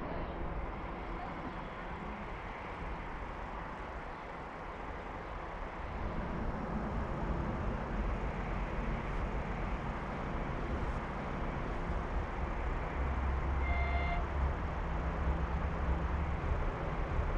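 Steady distant traffic noise with a low rumble that grows louder about six seconds in and again after about thirteen seconds. A brief, short high tone sounds once, about fourteen seconds in.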